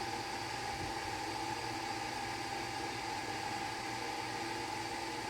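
Steady room noise: an even hiss with a faint steady hum, with no distinct event standing out.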